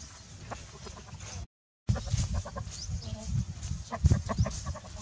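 A rooster clucking, over low thuds and rumble, with faint high bird chirps. The sound drops out for a moment about one and a half seconds in.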